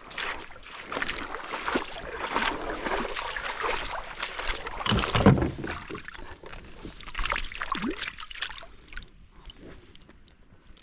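Water splashing and sloshing around a kayak in a series of irregular strokes, with a louder splash or knock about five seconds in, fading toward the end.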